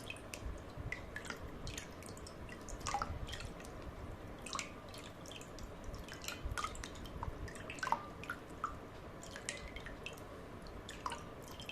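Faint, irregular water drips and small bubble plinks, a few a second, while a Bluetooth speaker is filled with water.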